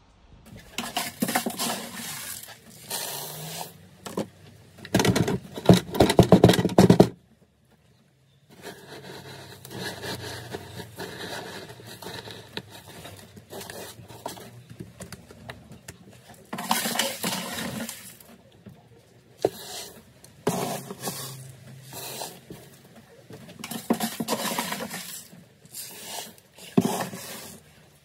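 Dry pigeon corn rattling and scraping against a wooden hopper feeder's trough as it is moved around, in repeated bursts. The loudest burst comes about five to seven seconds in, followed by a short break.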